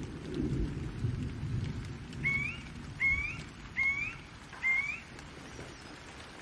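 Steady rain with a low rumble of thunder. About two seconds in, a bird calls four times in a row, each a short upslurred whistle.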